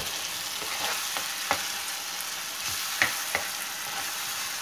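Masala with freshly added yogurt sizzling in a nonstick frying pan while a plastic spoon stirs through it, with a few sharp taps of the spoon against the pan. The yogurt is cooking down until its water dries off.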